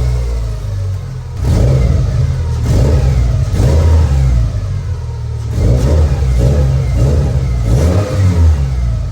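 Subaru Legacy's boxer engine running through an aftermarket exhaust, revved in short blips several times over a deep exhaust rumble, with a newly replaced exhaust gasket.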